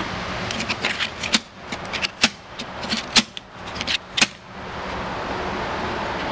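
Hinged plastic flip segments of a seven-segment scoreboard digit being flipped over by hand: a run of light clicks with four sharp snaps about a second apart, over a steady background rush.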